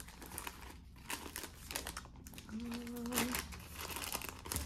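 Clear plastic sleeve crinkling as a rolled diamond-painting canvas is slid out of it by hand, in irregular rustles, with a brief low hum about halfway through.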